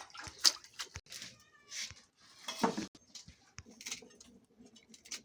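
An animal calling: a short pitched call just after a second in, then a louder one in the middle, among scattered clicks and knocks.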